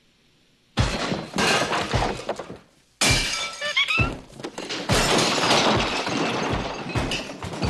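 Heavy crashing and thudding, with things breaking, as a chimpanzee batters at a wall to break through it. It starts suddenly about a second in and comes again in a longer run from about three seconds in, with music under it.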